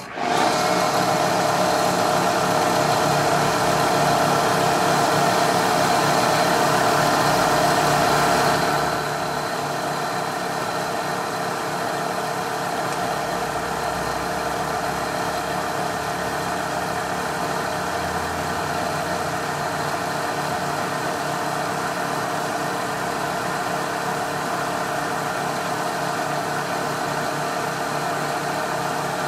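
Milling machine running with an end mill taking a light cut along the side of a small metal casting held in the vise; a steady machining noise that starts abruptly, is louder for about the first nine seconds, then settles to a slightly quieter steady level.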